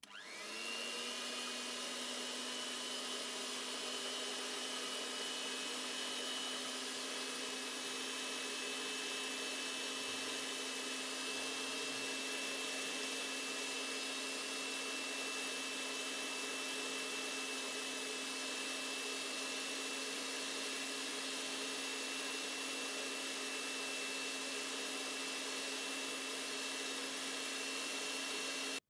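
Electric hand mixer with twin wire beaters running steadily on its lowest speed, whipping egg whites into a froth: a steady motor hum with a high whine on top. It starts up at the very beginning.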